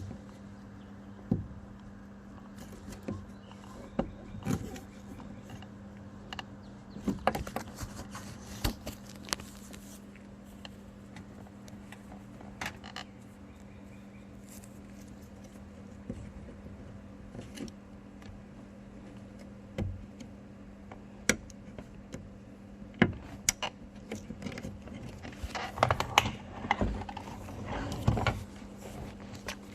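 Scattered clicks and light plastic rattles of hands working a car door panel and unplugging its wiring connectors, over a steady low hum. The clatter is busiest about a quarter of the way in and again near the end.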